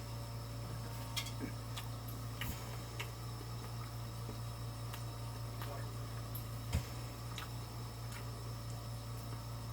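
Eating sounds from crispy fried chicken: scattered sharp crunches and mouth clicks at irregular intervals, the clearest about seven seconds in, over a steady low electrical hum.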